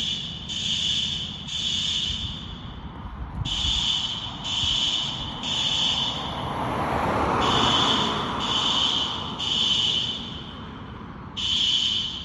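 System Sensor SpectrAlert Advance fire alarm horns sounding the temporal-three evacuation pattern: three loud, harsh horn blasts, a pause, then three more, repeating. A broad rushing noise swells and fades in the middle.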